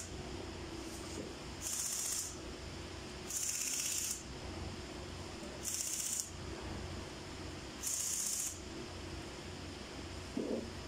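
Aerosol spray can sprayed onto engine cylinder heads in four short hissing bursts, a second or two apart.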